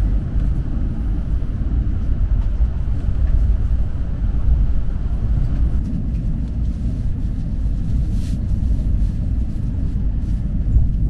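Steady low rumble of a KTX-EUM train running along the line, heard inside the passenger cabin, with a few faint ticks.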